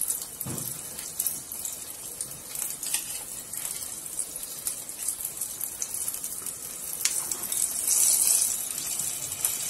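Dollops of banana batter frying in a pot of oil with a steady hissing sizzle, growing louder near the end, broken by a few light clicks of metal spoons against the pot and bowl.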